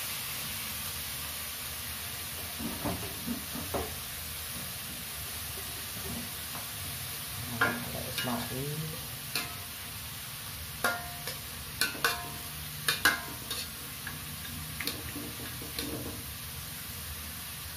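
Diced carrots and vegetables sizzling in a hot metal wok with a steady hiss, while a slotted metal spatula stirs and scrapes them. In the second half the spatula clanks and scrapes sharply against the pan a dozen or so times.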